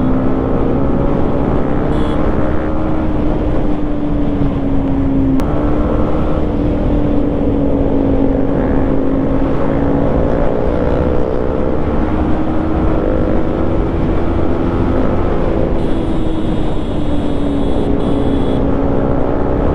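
Yamaha MT-15's single-cylinder engine through an Akrapovic exhaust, running at a steady cruise, its note drifting gently up and down with a small step about five seconds in, over a low rushing noise.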